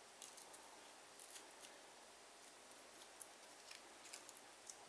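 Near silence with a few faint, sharp clicks and light metal scrapes of a feeler gauge and small hand tools being worked at the rocker arms of a small single-cylinder engine during a valve clearance adjustment.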